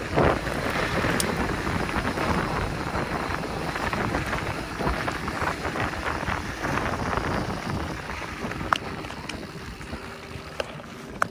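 Wind buffeting the microphone and tyre noise from a mountain bike riding a dirt trail, with a couple of sharp clicks in the second half. The noise eases off over the last few seconds.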